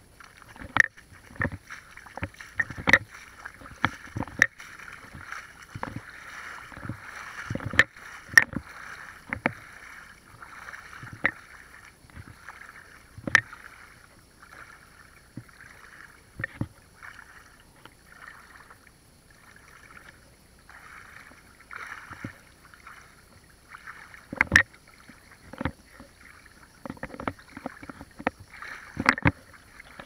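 Feet wading through a shallow, pebbly stream: water splashing and sloshing in irregular steps, with sharp clicks and knocks scattered through. It is quieter for a stretch in the middle.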